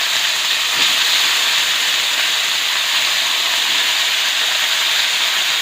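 Onions and potato pieces frying in hot oil in a kadai: a steady sizzle.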